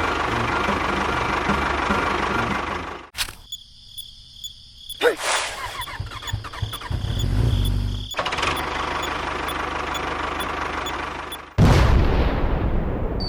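Small motor of a model construction machine running steadily, broken by abrupt cuts: a quieter stretch with a sharp knock about five seconds in, then the running again, louder from near the end.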